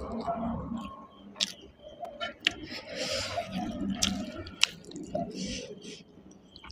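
Close-up eating sounds: chewing with several sharp, wet clicks, and fingers squishing and mixing rice and chicken curry in a steel plate.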